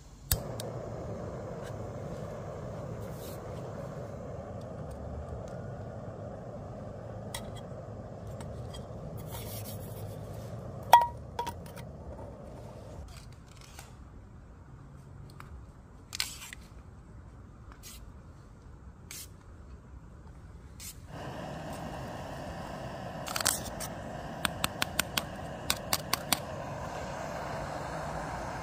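Small screw-on gas canister camping stove: the burner running with a steady hiss, then the gas hissing again and the piezo igniter clicking about eight times in quick succession as it is lit.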